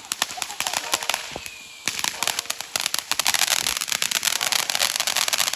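Fireworks crackling: scattered sharp pops at first, then a dense, rapid run of crackling bangs from about two seconds in.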